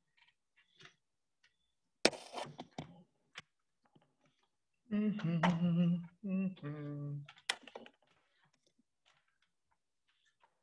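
Clicks and knocks of hands working at a computer and webcam, with a man humming two held low notes in the middle and a sharp click just after.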